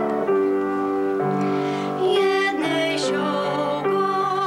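Upright piano played with a female voice singing along, a slow melody of held notes.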